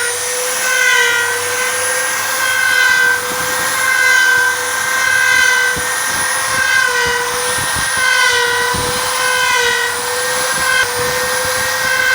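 CNC wood router running: a steady high whine with several tones that step up and down in pitch every second or so as the machine moves.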